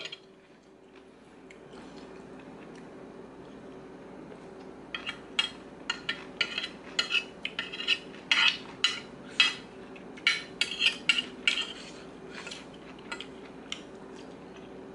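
Metal spoon and fork clinking and scraping against a ceramic plate as the last of the food is gathered up: quiet at first, then a quick run of clinks through the middle that thins out near the end.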